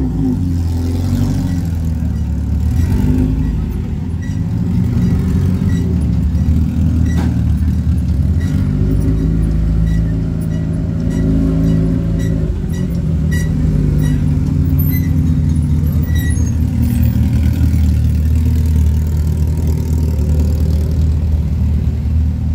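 Off-road race vehicle engines running loudly with a deep exhaust note, the pitch drifting up and down with light revs.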